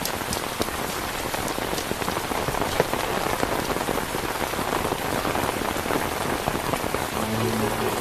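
Steady heavy rain falling, with individual drops striking here and there. Low held musical notes come in near the end.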